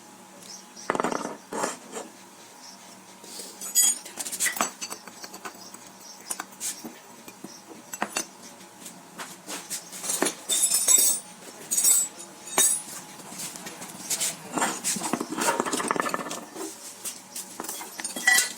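Irregular metallic clinks and knocks of hand tools and metal parts being handled during work on a concrete mixer.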